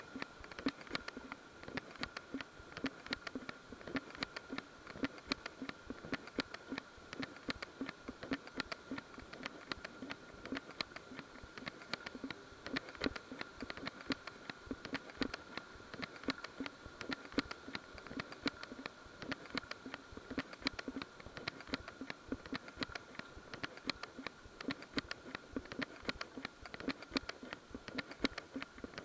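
Footsteps walking at a steady pace on a paved path, heard through a body-worn camera as an even rhythm of soft thuds and scuffs.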